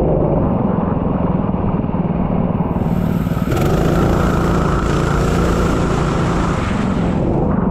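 A racing vehicle's engine running hard at high revs, its pitch shifting about three and a half seconds in.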